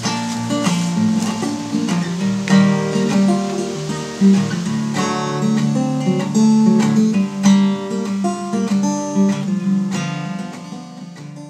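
Background music on acoustic guitar, strummed and plucked, fading out near the end.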